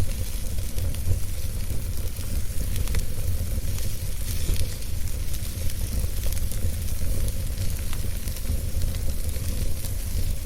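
Wood fire crackling in a fireplace: a steady low rumble and hiss with scattered sharp pops and snaps.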